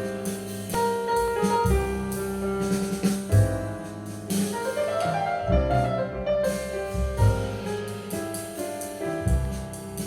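Music with piano and a beat of low drum thumps, played back through a Bose 301 Series I loudspeaker as a test demo.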